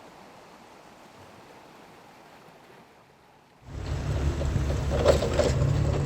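A faint steady hiss of wind and sea, then, about three and a half seconds in, a fishing boat's engine running loudly with a steady low hum. A few knocks and clatters sound over it.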